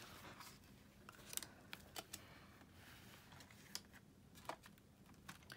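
Near silence, with a few faint clicks and rustles of a cardstock card being handled and opened flat.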